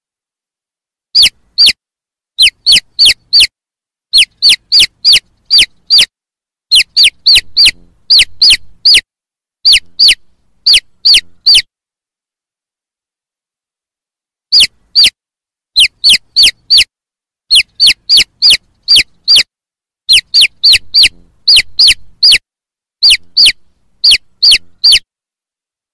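Baby chicks peeping: short, high-pitched peeps that fall in pitch, coming in quick runs of two to five, with a pause of about two seconds around the middle.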